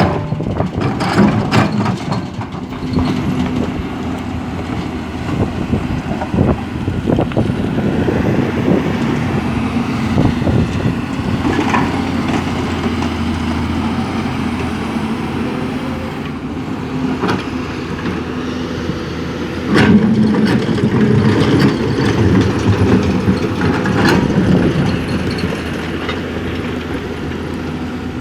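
Excavator's diesel engine running steadily as it loads material into a dump truck, with scattered clanks and thuds, the loudest about twenty seconds in.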